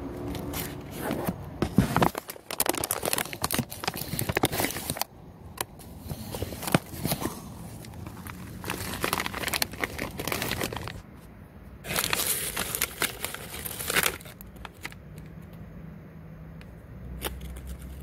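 Foil-lined bag of Wise lightly salted potato chips crinkling as it is handled, with the chips rustling inside. It comes in bursts of a few seconds each and dies down over the last few seconds.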